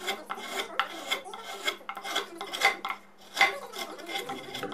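A long hand file shaping the edge of a solid walnut chair seat, rasping the wood in quick repeated strokes, about three a second, with a short pause a little past halfway.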